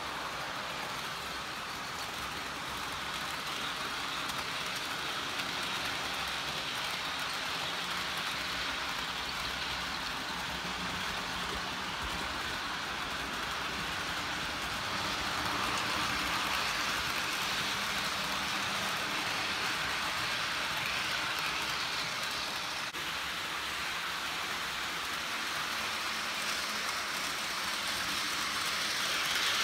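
Model passenger train running along the track: a steady whirring hiss of wheels on the rails and the small electric motor, growing louder near the end.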